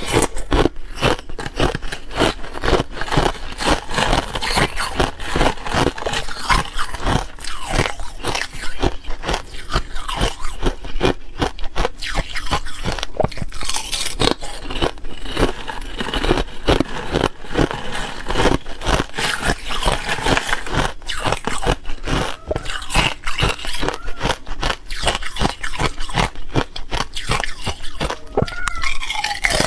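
Thin ice crunched and chewed close to the microphone: a dense, unbroken run of crackling snaps.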